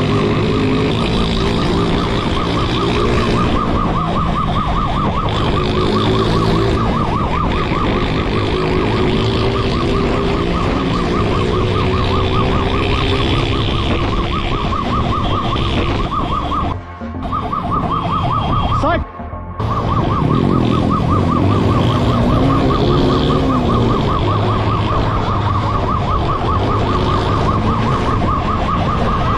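Police siren warbling rapidly and continuously over a vehicle engine whose pitch rises and falls. The sound drops out briefly twice about two-thirds of the way through.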